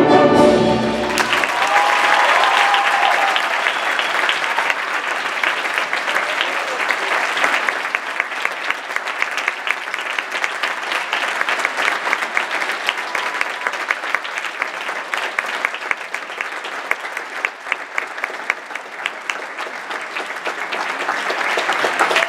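Orchestral ballet music ends about a second in, and a theatre audience breaks into sustained applause with a few whoops, the clapping slowly thinning.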